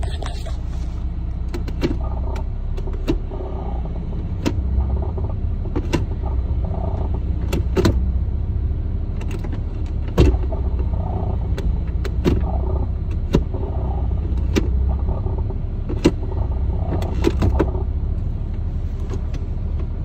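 2009 Hyundai Sonata's four-cylinder engine idling, heard from inside the cabin, with short sharp rattles at irregular intervals, roughly once a second. The owner traces the rattle to a worn passenger-side motor mount.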